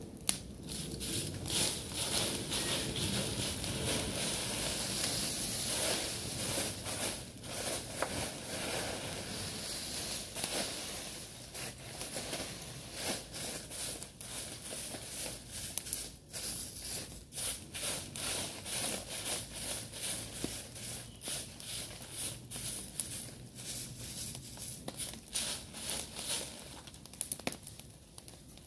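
Dry leaves being swept with a stick broom over rock and gathered by hand: a busy, irregular run of scratchy rustling strokes that grows sparser in the second half.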